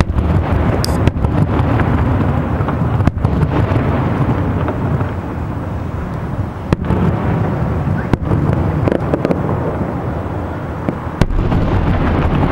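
Aerial firework shells bursting: a continuous rumble of booms with crackle, and about five sharper bangs that stand out.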